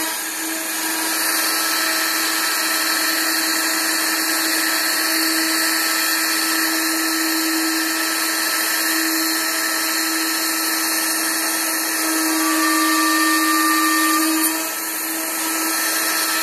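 Router spinning at full speed and milling finger-joint slots into a wooden board: a steady motor hum under a dense rushing noise of the bit cutting and throwing chips. The loudness dips briefly just after the start and again near the end.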